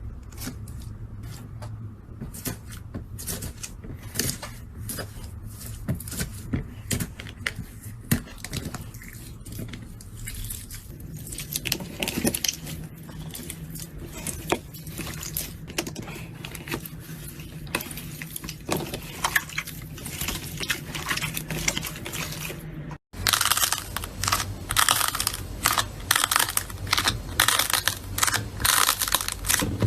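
Slime being squeezed and poked by hand, giving irregular sticky clicks, pops and crackles over a low steady hum. After a short break about 23 seconds in, the clicking becomes louder and denser.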